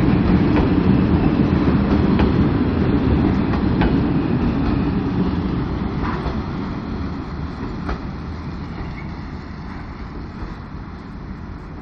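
Freight train of loaded two-deck car-carrier wagons rolling past, with the wheels knocking over rail joints every second or two. The rumble fades steadily as the end of the train draws away.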